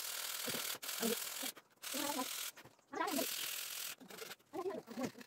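Sandpaper rubbing by hand along the edges of a small wooden roof piece: about four scraping strokes, each half a second to a second long, with short pauses between.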